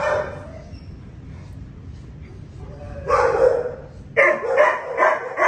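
A dog barking: one longer bark about three seconds in, then a run of four short barks about 0.4 s apart near the end.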